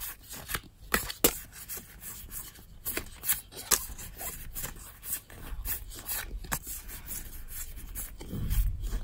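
Cardfight!! Vanguard trading cards being flipped through by hand, each card slid off the front of a held stack and onto the back, in a run of irregular soft swishes and clicks as the cards rub against one another.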